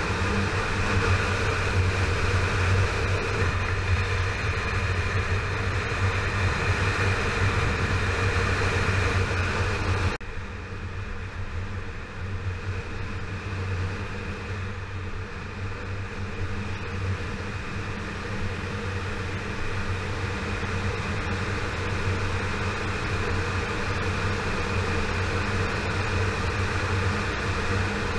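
Yamaha FZ6R's 600 cc inline-four engine running at a steady cruise under wind and road noise. About ten seconds in the sound drops abruptly quieter and duller, then slowly builds again.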